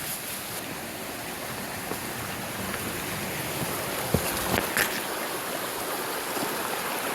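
Steady rush of a mountain creek running over rocks, with a few brief knocks about four and a half seconds in.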